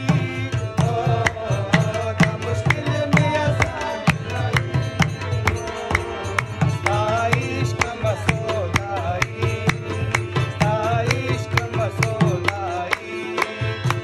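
Harmonium playing a melody over tabla, whose deep bass drum strokes slide down in pitch, with hand claps keeping an even beat throughout.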